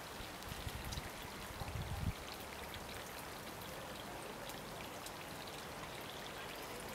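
Wind on the microphone: low buffeting gusts in the first two seconds, then a steady rushing hiss.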